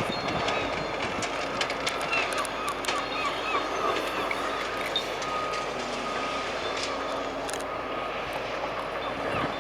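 Demolition machinery running steadily, with a low engine hum and scattered knocks and clatter of debris.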